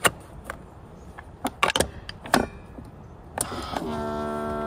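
Keurig single-serve coffee maker being loaded: several sharp plastic clicks as a coffee pod is pressed into the holder and the lid is shut, then near the end the machine starts a steady electric hum as it begins to brew.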